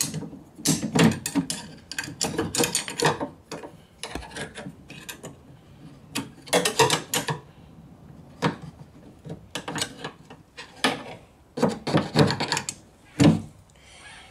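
A long screwdriver prying and scraping at the small clips inside an Opel Vectra B car door: irregular bursts of scraping, rattling and clicking, with a sharp clack near the end.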